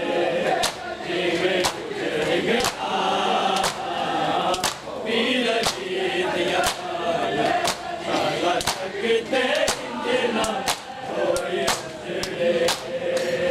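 Men chanting a noha together, with sharp slaps of hands striking bare chests in matam about once a second. The slaps come faster near the end.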